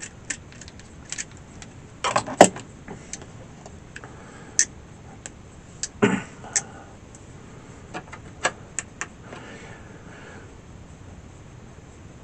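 Sharp metallic clicks and clatter of a hand crimping tool and small parts being handled, irregular, with louder clacks about two seconds in and again about six seconds in.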